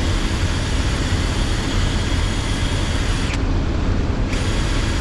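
Wind buffeting the microphone on an open boat offshore: a loud, steady rush with a deep, unsteady rumble underneath. The high hiss drops away for about a second just past the middle.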